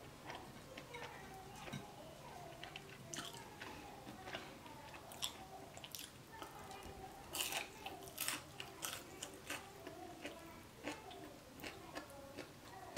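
Close-up chewing and crunching of a fried potato tot, with wet mouth clicks; the crunchiest bites come about halfway through.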